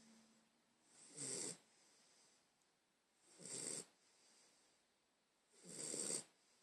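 Snoring: three rasping snores, one about every two and a half seconds, with quiet breathing between.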